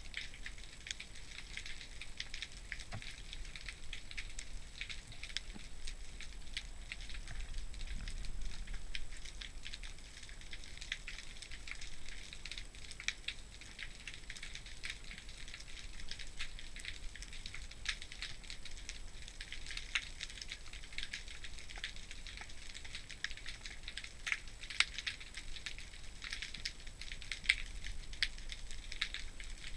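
Underwater ambient crackling: a dense, steady patter of tiny clicks and ticks, with a faint low rumble beneath.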